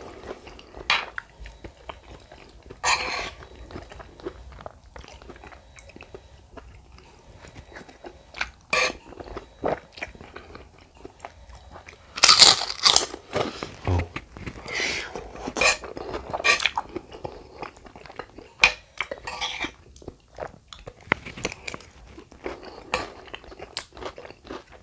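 Close-miked eating: chewing, then from about twelve seconds in, loud crunching of a bitten kerupuk merah, the plain red Padang cracker. The crunching is the loudest part.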